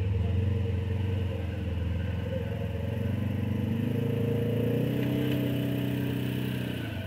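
Side-by-side UTV engine pulling at low speed as the machine crawls up a steep rock ledge. The revs climb from about three seconds in and ease off near the end.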